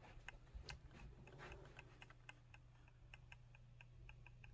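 Near silence: faint room tone with light, fairly regular ticking, about four ticks a second.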